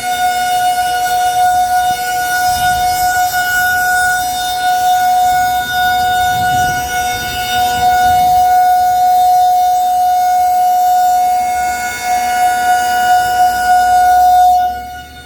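Federal Signal 2001-SRN rotating electromechanical warning siren sounding its steady alert tone. The pitch holds while the loudness swells and fades as the horn turns, dipping sharply near the end.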